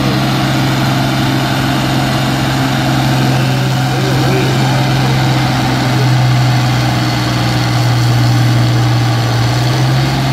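Turbocharged Farmall 560 tractor's six-cylinder engine idling steadily at the start line, hooked to the pulling sled, rising a little about six seconds in.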